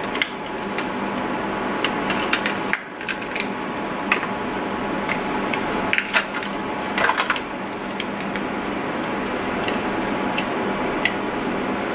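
A small plastic eyeshadow compact and its wrapping being handled and opened: scattered light clicks and crinkles over a steady background hiss.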